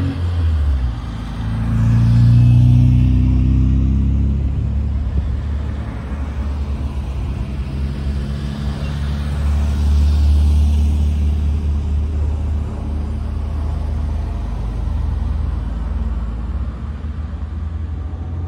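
Classic car engines running as cars drive past, with the loudest pass about two to three seconds in and another swell around ten seconds in.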